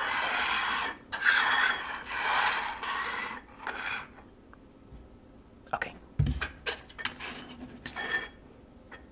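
Small round metal tins being slid and shuffled across a tabletop in several scraping strokes over the first four seconds. After that comes a scatter of light clicks and a soft thump as a dog puts its paws on the table and noses at the tins.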